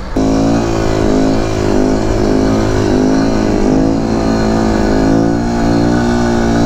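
Kawasaki Z125 Pro's single-cylinder engine running hard under throttle during a wheelie, its pitch rising and falling slightly as the throttle is worked.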